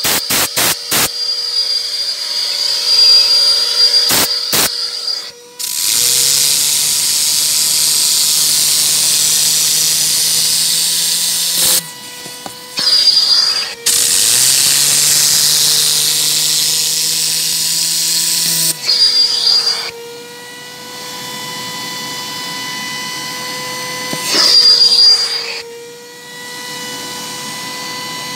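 A vacuum cleaner runs with a steady whine while a Tornador compressed-air cleaning gun blasts the car carpet in two long hissing stretches of about five to six seconds each. A short high whistle comes and goes several times in between.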